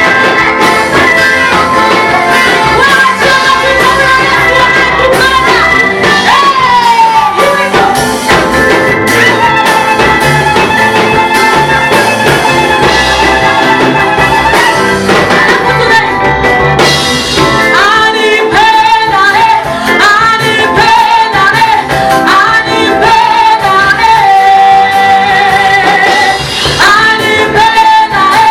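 A worship group singing a praise song with instrumental accompaniment, a lead voice holding and bending long notes over it.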